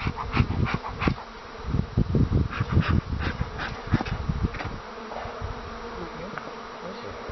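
Honeybees buzzing in a steady hum around an opened hive. Over the first four or five seconds, loud knocks and thumps from the hive being handled sound over the buzzing, then die away.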